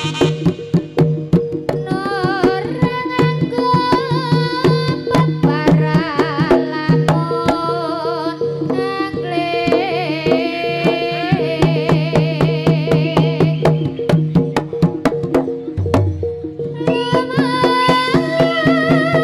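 Live East Javanese jaranan ensemble music: rapid hand-drum strokes under a wavering, ornamented high melody, over steady held low tones. About 15 seconds in the melody breaks off for a second while a deeper tone sounds, then resumes.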